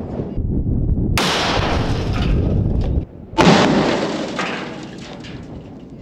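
Oxy-acetylene combustion cannon going off: a sudden loud boom with a rush of noise about a second in, then a second, sharper and louder boom about three and a half seconds in that fades away.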